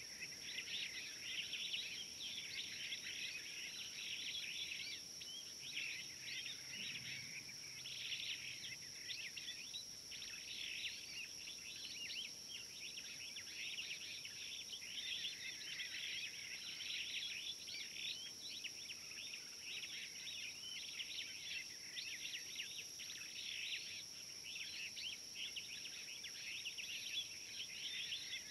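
Outdoor bush ambience: a dense, continuous chorus of many small bird chirps and calls, over a steady high-pitched whine.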